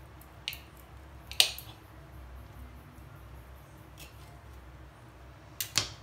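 Kitchen knife cutting a slice of baked pizza on a glass plate: a few sharp clicks and scrapes as the blade meets the plate, the loudest about a second and a half in. A double clack near the end as the knife is laid down on the counter.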